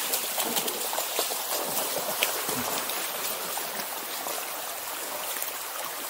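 Stream water flowing steadily, with a few faint clicks of splashing in it.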